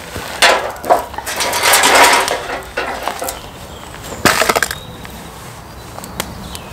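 Split firewood being handled and set down, knocking and scraping in three noisy bursts over the first few seconds, the longest about two seconds in, then quieter.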